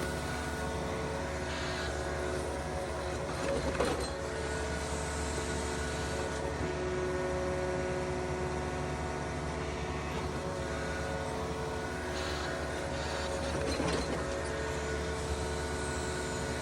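Yanmar excavator's diesel engine running steadily under digging load, with a steady whine over it and a short knock or scrape about four seconds in and again some ten seconds later.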